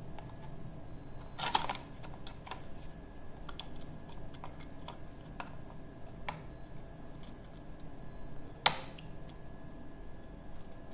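Small scattered clicks and taps of a soldering iron and a load cell wire being worked at a circuit board's terminal pads, with a sharper click about a second and a half in and another about nine seconds in. A faint steady high tone runs underneath.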